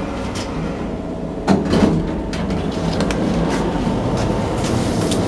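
Steady low mechanical rumble and hum, with a sudden sharp clack about a second and a half in and a few lighter clicks and knocks after it.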